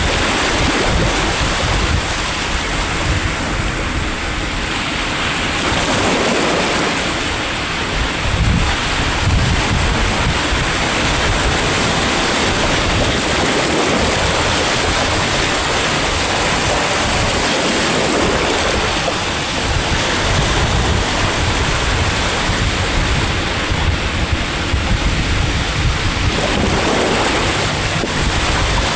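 Sea waves breaking and washing on the shore, a continuous rush that swells every few seconds as each wave comes in, with wind buffeting the microphone.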